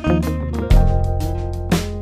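Background music led by plucked guitar over a steady beat and bass.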